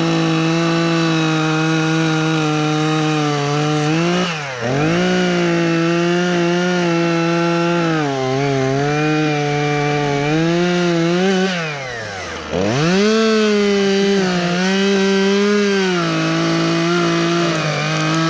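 Chainsaw running at high revs cutting into the trunk. Its engine note sags twice as the chain bogs in the wood, then picks back up, and drops off at the very end.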